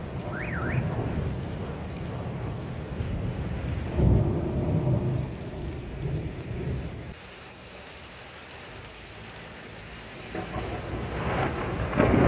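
Thunder rumbling over steady heavy rain, with a loud peal about four seconds in and another near the end; the rumble eases between them.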